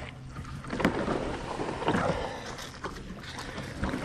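Water sloshing and splashing against a small one-man fishing boat at the pond's edge, in three uneven swells about a second apart.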